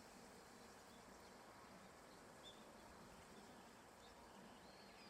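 Near silence: faint outdoor ambience with a few faint, short, high bird chirps in the distance.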